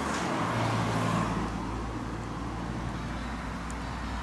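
BMW E39 M5's 4.9-litre S62 V8 idling steadily, heard straight from the open engine bay as a low, even hum.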